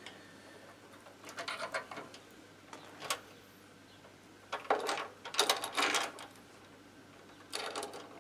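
Metal moped parts being handled: several short bursts of clinking and rattling, the longest about halfway through.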